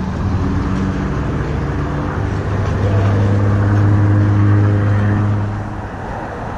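Road vehicle passing on the adjacent highway bridge, a steady engine hum over tyre noise that swells, is loudest about four seconds in, then fades.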